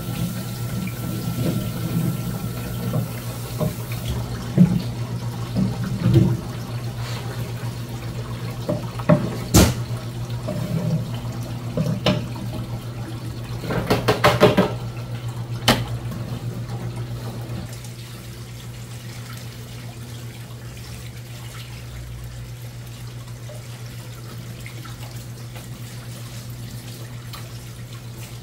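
A long knife working through a large raw fish fillet on a plastic cutting board: wet cutting and handling sounds with scattered knocks and a quick cluster of sharp strokes about halfway, over a steady low machine hum. From about two-thirds of the way in, only the hum remains.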